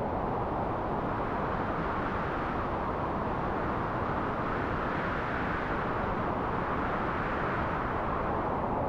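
Soft breeze blowing steadily, a smooth rushing hiss. It grows brighter and stronger as a gust builds about halfway through, then eases again toward the end.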